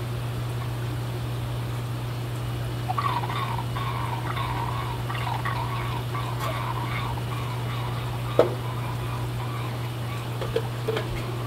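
Water gurgling and splashing in bubbly spurts for about five seconds, starting about three seconds in, as when water is poured into an aquarium, over a steady low hum. A single sharp knock near the end.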